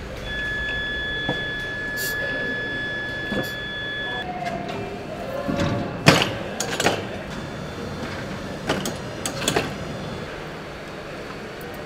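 Car assembly-line workshop sounds: a steady high beep lasting about four seconds, then a series of sharp metallic clanks and knocks, the loudest about six seconds in.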